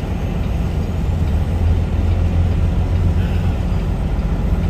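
Semi truck's diesel engine running, heard as a steady low rumble inside the cab of a Peterbilt 579.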